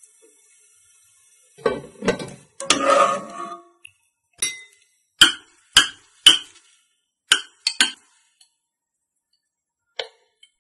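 A metal spoon clinking against a glass measuring jug of crushed matcha jelly: about eight sharp, ringing clinks over a few seconds, with one more near the end, after a couple of seconds of rougher scraping and stirring noise.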